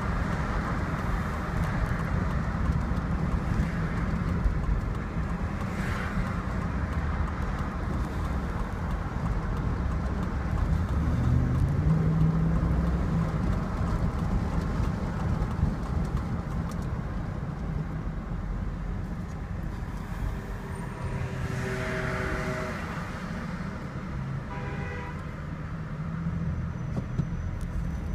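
Car driving in traffic, heard from inside the cabin: steady engine and road rumble, with the engine pitch rising as the car speeds up about halfway through. A brief pitched tone sounds about two-thirds of the way through.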